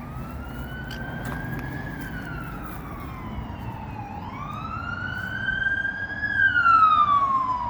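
Emergency vehicle siren wailing, its pitch rising and falling slowly twice: up for about two seconds, down to a low point about four seconds in, up again and falling near the end, where it is loudest.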